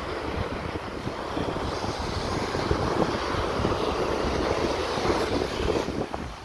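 Wind buffeting the microphone: a rushing, rumbling noise with irregular low thumps that swells through the middle and drops off near the end.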